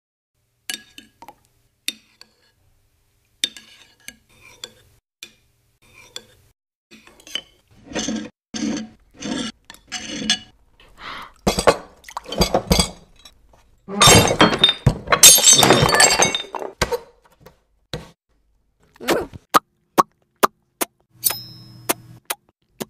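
Spoons clinking against bowls in scattered taps, growing into a loud clatter of crockery crashing and breaking about halfway through, then a run of sharp clinks.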